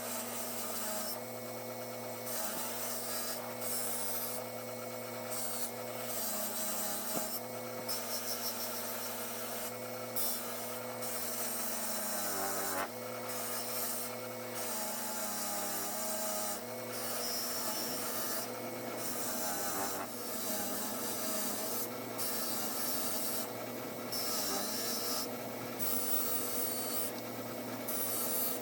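A motor-driven tool scrubbing rust off a cast iron utility knife body: steady scratchy rubbing over a motor hum that shifts pitch a few times.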